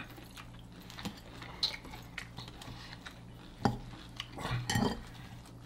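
A few scattered clinks of a fork against a plate or bowl, with some chewing, over a low steady hum.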